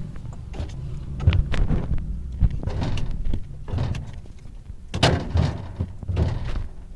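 Items being restocked into a store fridge: a rapid series of knocks, clunks and clinks as products are set down on the shelves and pushed into place, the loudest about a second and a half and again about five seconds in.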